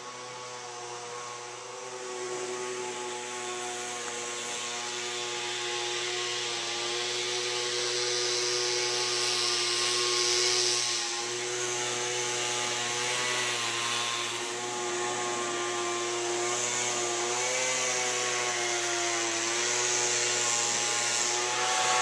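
An engine running steadily, its pitch wavering slightly, under a high hiss.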